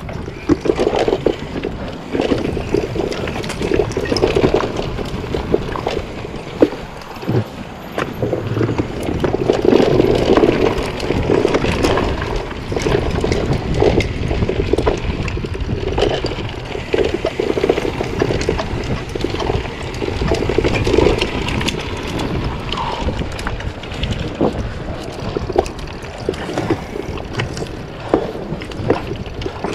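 Mountain bike ride down a rocky trail recorded on a rider-mounted action camera: wind buffeting and rumbling on the microphone, rising and falling in waves, with many sharp clicks and clatter from the bike jolting over rock.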